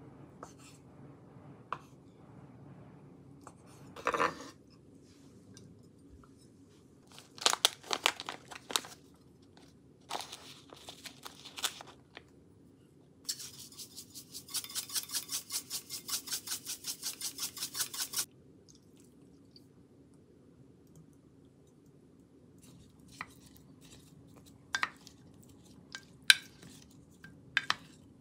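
Kitchen food-prep handling sounds: a knock about four seconds in and some clattering taps. Then comes about five seconds of fast, even grinding strokes, roughly five a second, from a pepper mill seasoning the salad. Near the end there are scattered light clicks of a wooden spoon tossing tomatoes and mozzarella in a glass dish.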